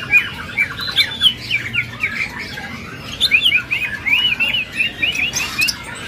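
Caged greater green leafbird (cucak ijo) singing a fast, unbroken run of short whistled chirps and slurred notes, with a quick rattling trill in the first couple of seconds. The bird is 'gacor', in full, ready song.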